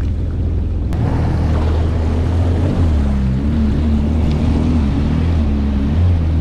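Yamaha GP1800R SVHO jet ski's supercharged engine running steadily at low speed, with the jet pump churning water as the craft manoeuvres slowly.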